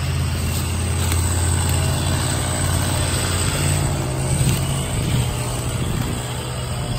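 Stihl MS 261 CM two-stroke chainsaw idling steadily while carried between cuts, without revving or cutting.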